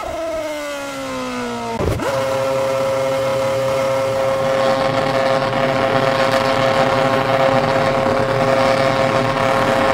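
Ferrari Formula 1 car's 2.4-litre V8 engine, its note falling as the car runs off the track, then a sharp thud about two seconds in as it hits the tyre wall. After the impact the engine keeps running at steady, unchanging revs.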